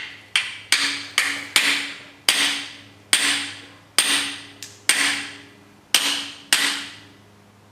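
About a dozen hammer blows on a driver held against a brass freeze plug, driving it into a Chrysler 440 cast-iron engine block. The blows come quickly at first, then more slowly, each with a short metallic ring.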